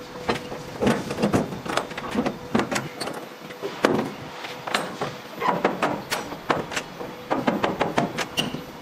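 Steel shipping container doors being shut and their locking bars and handles latched: a run of irregular metal clanks and knocks.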